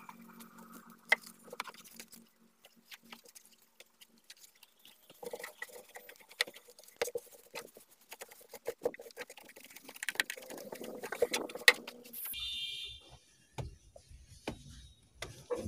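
A cloth rubbing and wiping over a car's bare sheet-metal floor pan, with scattered light clicks and knocks. The scratchy rubbing is densest in the middle stretch. A short high tone sounds about twelve seconds in.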